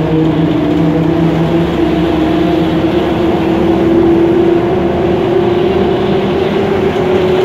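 Ikarus 280 articulated bus running under way, heard from inside the cabin. A steady engine and drivetrain drone with a whine that rises slowly in pitch as the bus gathers speed.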